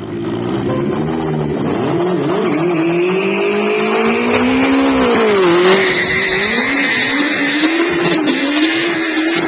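Turbocharged Suzuki Hayabusa inline-four engine running hard. Its pitch climbs and wavers as the throttle is worked, drops sharply about five seconds in, then climbs again, with a high steady whine above the engine note.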